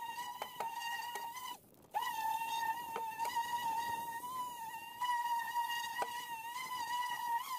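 Corded electric polisher with an 80-grit sanding disc, running with a steady high whine as it sands paint and filler off the lift bucket's gel coat. It stops for a moment about a second and a half in, starts again, and shuts off at the very end; faint ticks come from the pad on the surface.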